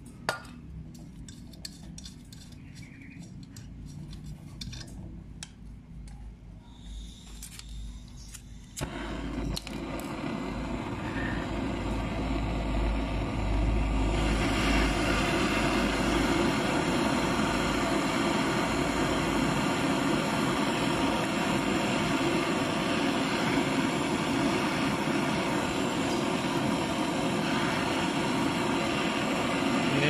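Gas brazing torch flame hissing steadily on a copper refrigerator pipe joint, starting about nine seconds in and growing louder a few seconds later. Before the flame there are a few scattered clicks.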